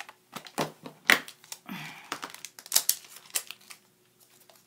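Clear plastic stamp sheet being handled on a desktop: several sharp plastic clicks and taps, the loudest about a second in, followed briefly by a crinkle of plastic.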